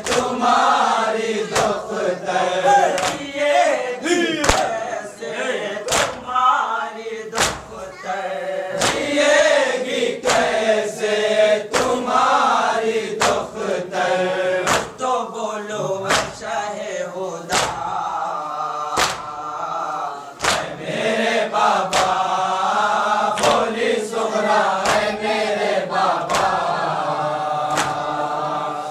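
Men's voices chanting a Muharram noha (lament) together, with sharp slaps in a steady beat about every one and a half seconds, the hand-on-chest matam that keeps time to the noha.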